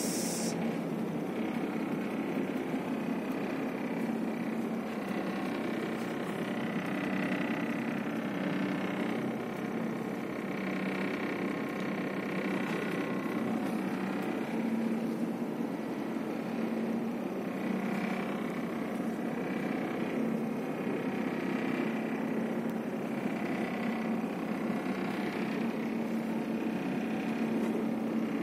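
Houseboat's engine running steadily, a constant low drone with a broad rushing hiss, heard from inside a cabin while the boat is under way.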